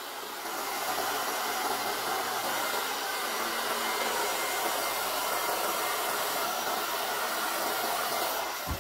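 Hair dryer blowing steadily, stepping up slightly about half a second in and switched off abruptly near the end. It is spreading poured acrylic paint into wave and lacing patterns.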